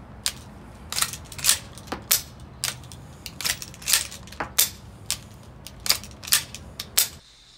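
Spencer repeating rifle's action being worked by hand, the lever thrown open and shut and the hammer cocked: a quick, uneven run of sharp metallic clicks and clacks that stops abruptly near the end.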